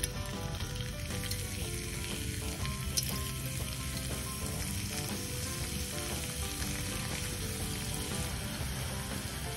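Potato sticks frying in hot oil in a miniature pan: a steady sizzle, with a sharp click about three seconds in.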